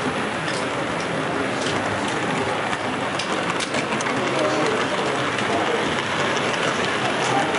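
A 7mm gauge model locomotive running along its track: a steady rolling hiss with scattered light clicks. Faint background chatter lies underneath.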